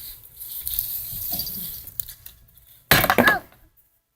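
Low handling rumble, then about three seconds in a short, loud cry whose pitch bends, cut off abruptly.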